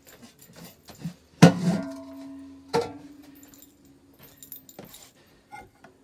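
Metal bowl and cooking pot set down on a hard floor: two clanks about a second and a half apart, the first the loudest, each leaving a ringing metallic tone that fades over a second or two, with smaller knocks around them.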